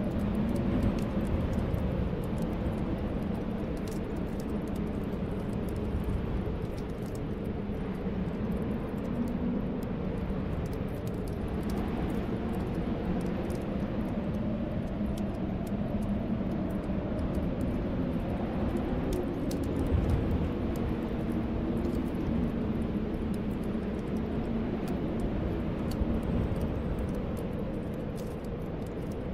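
Snowstorm wind howling steadily with a low, slowly wavering moan, and a fireplace crackling with scattered faint pops.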